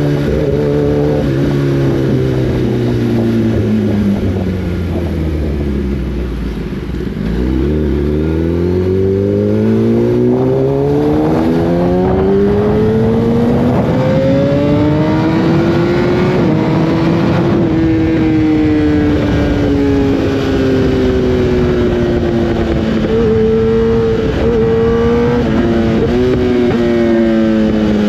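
Inline-four superbike engine on the road: the revs fall over the first seven seconds or so as the throttle is rolled off, then climb steadily for about eight seconds as the bike accelerates. After that it holds a cruising note with small rises and falls in the revs.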